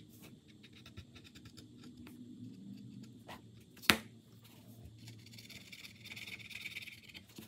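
Paint marker tip scratching faintly across a painted light switch cover as a moon is drawn in white, with one sharp tap about four seconds in and a brief spell of louder scratching near the end.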